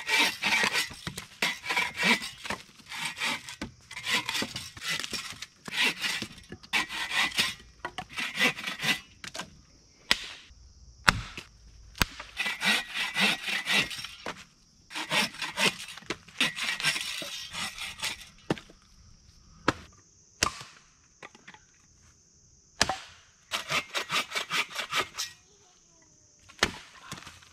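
Bow saw cutting through dry dead branches in runs of quick back-and-forth strokes. Between the runs come a few single wooden knocks.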